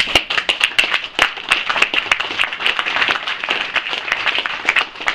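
Audience applauding: many people clapping at once in a dense, irregular patter.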